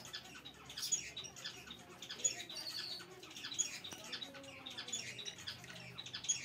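Finches chirping: a busy run of short, high cheeps, several a second, with a few louder ones standing out.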